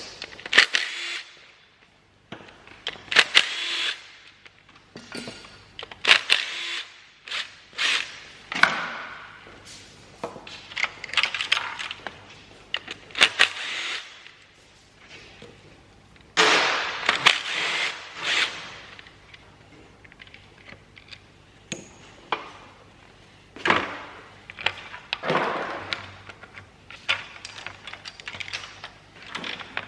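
Hand tools and metal parts clinking and clanking at irregular intervals, with a rattling, scraping stretch of about two seconds a little past halfway.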